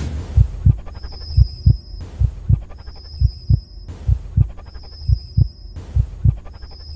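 Heartbeat sound effect: steady paired low thumps (lub-dub), about one pair a second, over a low hum, with a faint high tone coming and going about every two seconds.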